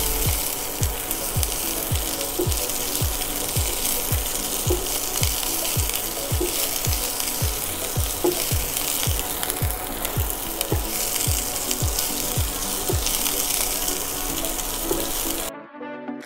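Sliced onions and whole spices sizzling steadily as they fry in oil in a nonstick pan, over background music with a steady beat of about two thumps a second. The sizzle cuts off suddenly shortly before the end, leaving only the music.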